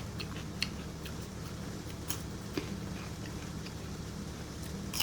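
A person chewing a raw green bean, heard as faint, scattered crunches and clicks over a steady low hum.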